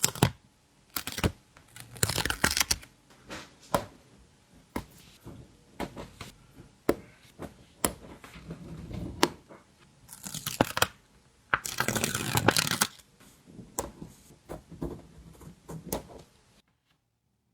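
Stickers being peeled off their backing and handled close up: sharp taps and crinkles of paper and plastic, with longer peeling rips about two seconds in and again around ten and twelve seconds. The handling stops shortly before the end.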